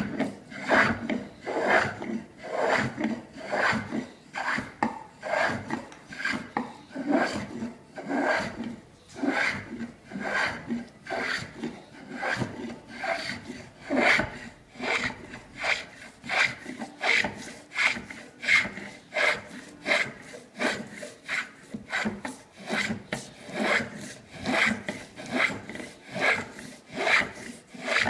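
Travisher shaving the hollow of a wooden chair seat, stroke after stroke. Each push slices off a curled shaving with a short scraping rasp. The strokes come at about one and a half a second, quickening in the second half.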